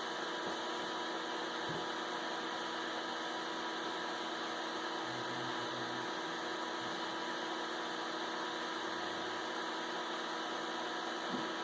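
Steady electrical hum with a fan-like hiss and several steady tones from a ROBO R1+ 3D printer left running with its heated bed on.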